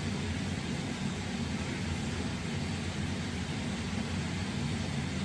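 Steady low mechanical hum with a hiss over it, as from a running motor or fan, holding at one level.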